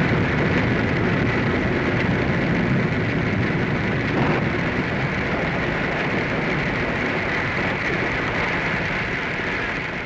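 Sound-effect rainstorm for a radio drama, made with studio devices such as drops falling from a funnel onto paper: a steady, dense rain-like hiss that eases slightly near the end.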